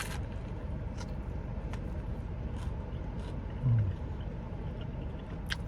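Steady low rumble of an air conditioner running, with scattered faint mouth clicks of chewing and a short low hummed 'mm' a little past halfway.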